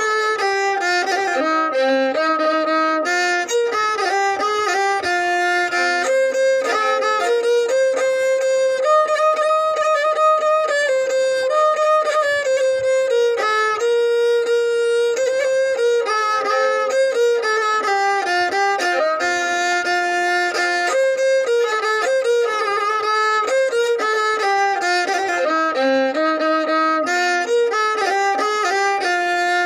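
A violin playing a solo melody: a single line of notes that moves up and down by steps, some held and some quick, without a break.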